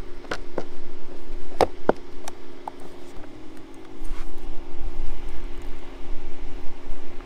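Sharp clicks and knocks of a plastic tub and shower bag being handled in the first two seconds, then water from a hanging camp shower bag running over a puppy in the tub. A steady low hum and some low wind rumble sit underneath.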